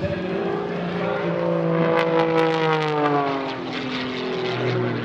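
Zivko Edge 540 aerobatic plane's piston engine and propeller droning as it flies its routine. The drone falls steadily in pitch for a couple of seconds, with a few sharp crackles in the middle, then settles to a lower steady note near the end.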